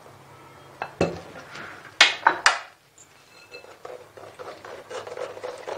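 Kitchenware knocking and clinking, loudest about two seconds in, then the softer scraping of a metal spoon pressing blended tomato purée through a fine steel mesh strainer.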